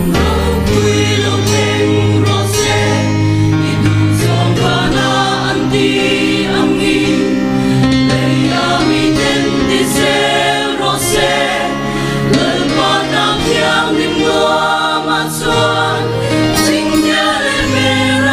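Mixed choir of women's and men's voices singing a sacred song in parts, with sustained low notes underneath.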